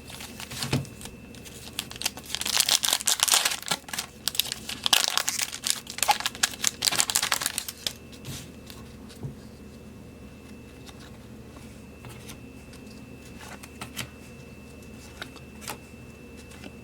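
Foil wrapper of a hockey card pack being torn open and crinkled, loudest between about two and eight seconds in, then a few faint clicks.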